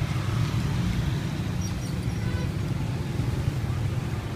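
A steady low rumble of outdoor background noise with no single event standing out.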